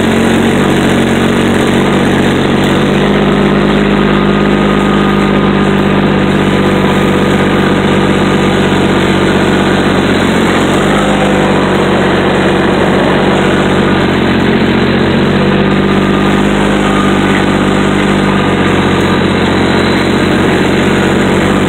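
Heavy diesel engine running steadily, loud and close, with small shifts in engine speed about three and eleven seconds in.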